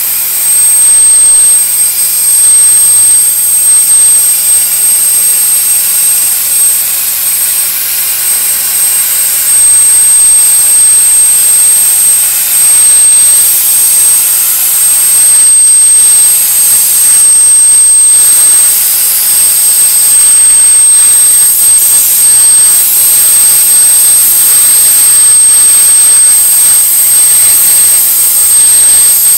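CNC plasma cutter torch cutting steel plate: a loud, steady hiss with a thin, constant high whine from the arc.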